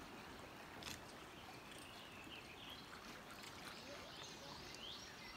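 Faint steady noise of creek water moving around a kayak, with a few faint bird chirps and a single light knock about a second in.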